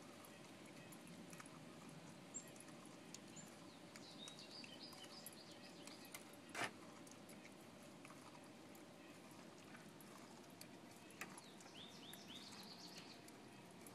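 Wheaten terrier gnawing kernels off a corn on the cob: faint, irregular clicks and crunches of teeth on the cob, with one sharper snap about halfway through. Faint bird chirps come in twice in the background.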